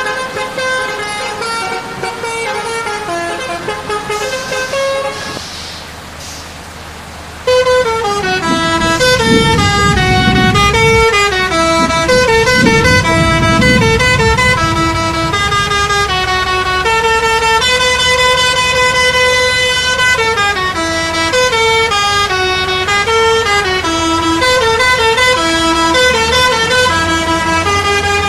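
Bus telolet horn, a multi-tone musical horn, playing a fast tune of stepped notes. It is quieter at first, dips about six seconds in, then comes back louder about seven and a half seconds in and plays on continuously, with a low rumble under the start of the loud stretch.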